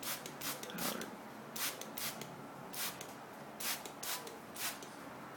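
Hand-pumped trigger spray bottle misting water onto cockatiels: a run of short hissing squirts at uneven spacing, about one or two a second.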